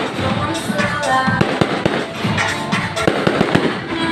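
Fireworks display: a rapid run of bangs and crackles, with music playing under it.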